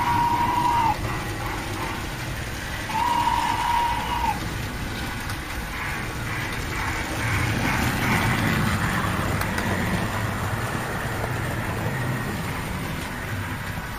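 Hornby OO gauge model trains running through a station. There are two steady, same-pitch whistle toots of just over a second each, at the start and about three seconds in. Then a locomotive rumbles and rattles over the track, loudest around the middle and fading toward the end.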